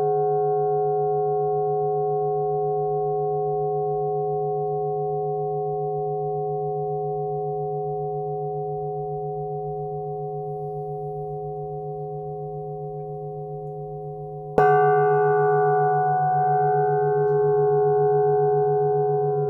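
Flat metal bells (bilo) ringing with several overlapping steady tones that fade slowly. They are struck again about fourteen and a half seconds in and ring on loudly with a slight pulsing beat.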